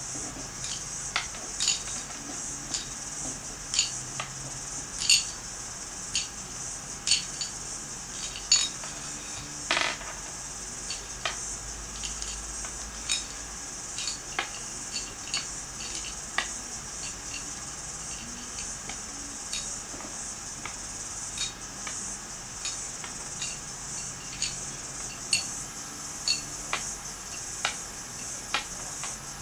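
Irregular light clicks and taps of M&M pretzel candies being picked off a ceramic plate and set down one by one on a tabletop, over a steady high hiss.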